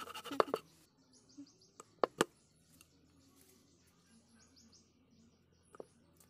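Knife blade knocking and cutting through thin bamboo splints on a wooden board: a few taps in the first half-second, a quick double knock about two seconds in, and one more near the end. Small birds chirp faintly in between.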